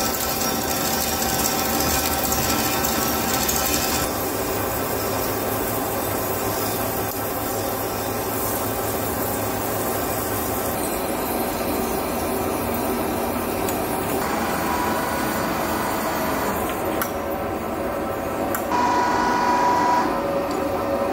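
LZMT CW6280D lathe boring the inside of a large steel tube end with a Monkula anti-vibration boring bar: steady machine running and metal-cutting noise. The sound shifts abruptly several times.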